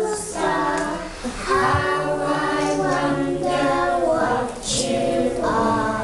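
A group of young children singing a song together, with held sung notes.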